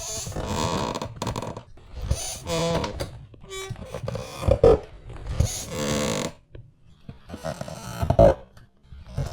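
Old chair squeaking and creaking as it is rocked and shifted, in a string of irregular creaks and groans, some pitched and wavering, with a few knocks.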